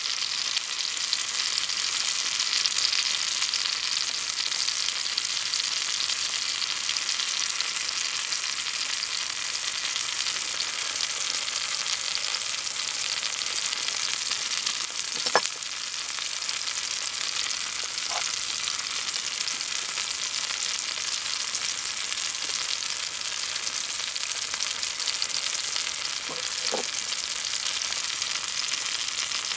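Cheese and cherry tomatoes sizzling steadily in oil in a small cast-iron skillet on a mini shichirin grill. A few short clinks of a knife and fork against the pan come about halfway through and near the end.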